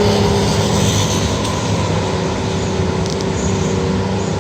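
Military tank's diesel engine running as the tank drives past, a steady low drone with a held hum, easing off slightly as it moves away.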